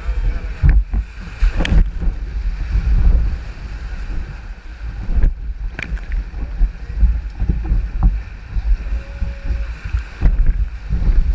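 River water rushing past an inflatable raft on whitewater, with heavy wind rumble on the microphone and a few sharp knocks.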